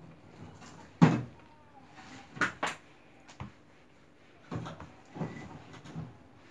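A string of short knocks and bumps from things handled on a tabletop: about six, spaced unevenly, the loudest about a second in.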